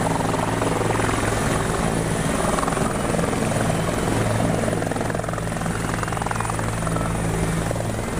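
Helicopter landing close by, its rotor and turbine engine running: a steady, fast rotor beat over a low drone.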